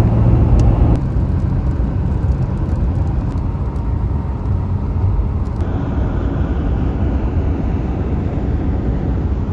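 Steady car road noise heard from inside the cabin while driving: a low, even rumble of tyres and engine.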